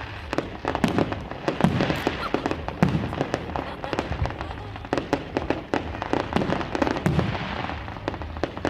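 Fireworks going off: a dense run of sharp bangs and crackles, several a second without a break, with a few louder reports among them.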